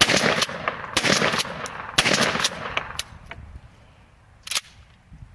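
Mossberg .410 shotgun firing buckshot, three shots about a second apart, each with a long echo. A single short sharp click follows a couple of seconds later.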